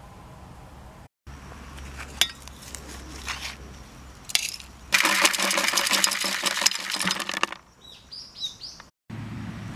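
Gloved hand scraping and crumbling dry garden soil: a dense, gritty crackle lasting about two and a half seconds, loudest in the middle. A few short, high bird chirps follow near the end.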